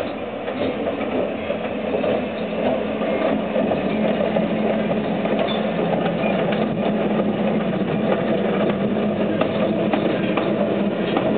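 Škoda-built class 182 electric freight locomotive moving slowly past: a steady hum with scattered clicks from the wheels on the rails, growing louder about two seconds in as it comes closer.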